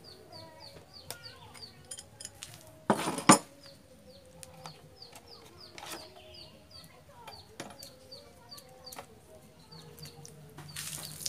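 Chickens clucking, with a run of short high cheeps, about three a second, throughout. Light metallic clicks come from the jet pump's pressure switch and its fittings being handled and worked loose, and a brief loud clatter about three seconds in.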